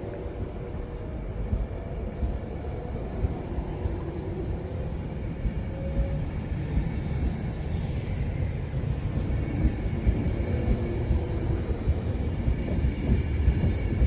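Class 390 Pendolino electric train pulling out of the station: a steady low rumble of wheels and running gear with a faint whine, growing a little louder toward the end.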